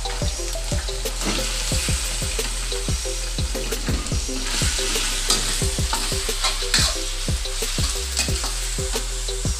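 Long metal spatula scraping and knocking against a stainless steel wok while sliced pork is stir-fried, over a steady sizzle. The strokes come about three times a second.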